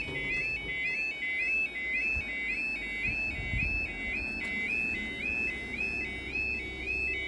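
Level crossing yodel alarm sounding, a rising two-tone warble repeating about twice a second, warning that a train is due.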